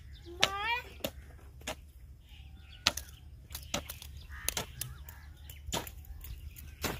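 Metal hoe blade chopping into dry, clumpy soil: uneven strikes, one or two a second. A bird gives one short rising call about half a second in.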